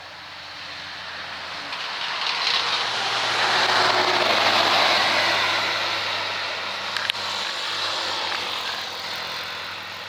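A road vehicle passing by: a broad rush of road noise that swells to a peak about halfway through and then slowly fades, with a brief click partway through the fade.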